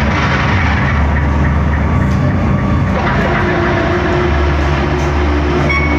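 Electric guitar played through a large pedalboard of effects, making a dense dark-ambient wash of noise over a steady low drone, with a high tone coming in near the end.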